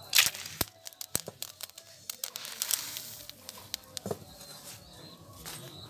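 Irregular sharp crackles and ticks of paddy grains roasting in a hot iron wok, with a short rustling rush just after the start.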